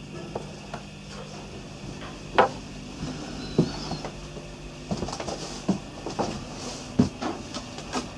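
Footsteps and irregular knocks of someone walking up wooden steps and through a motor cruiser's cabin, over a steady low hum. The two loudest knocks come about two and a half and seven seconds in.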